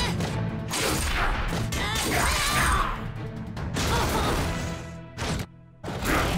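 Cartoon battle sound effects, crashes and heavy impacts, over loud background music. The sound drops out briefly about five and a half seconds in, then resumes.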